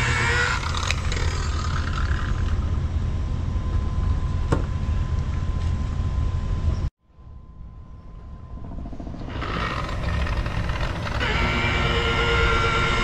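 Makita electric rotary polisher motor running with a steady whine, which stops about half a second in and leaves a steady low rumble. The sound cuts out abruptly about seven seconds in, and the polisher's whine builds back up near the end.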